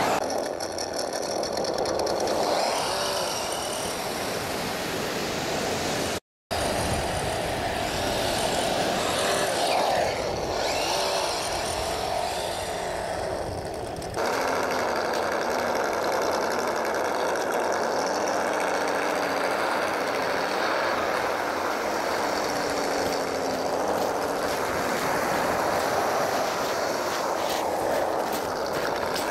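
Tamiya Monster Beetle radio-controlled truck driving on beach sand, its electric drive buzzing and wavering in pitch as it speeds up and slows, over steady surf and wind noise. The sound drops out completely for a moment about six seconds in.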